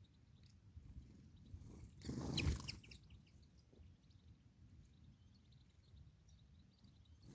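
Faint, scattered chirps of small birds over a low wind rumble. About two seconds in comes a louder rushing burst, under a second long, with a few sharp calls in it.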